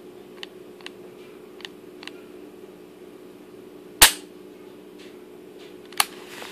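Heckler & Koch P30L pistol with a GG trigger job being dry-fired: several faint clicks of the trigger mechanism, then two sharp snaps of the hammer falling about two seconds apart, the first the louder.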